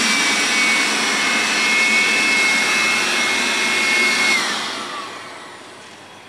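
INGCO AB4018 400 W electric aspirator blower running in suction mode: a steady rush of air with a high motor whine. About four seconds in it is switched off, and the whine falls and the air noise fades as the motor spins down.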